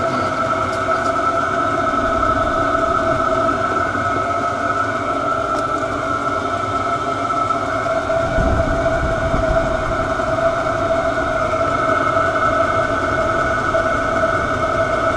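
Chinese diesel air heater running steadily: a constant fan whine with two steady tones over a low burner rumble.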